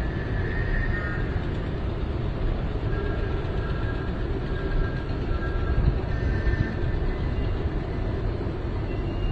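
Strong wind blowing across the microphone and through flapping prayer flags: a steady low rumble, with faint high tones coming and going.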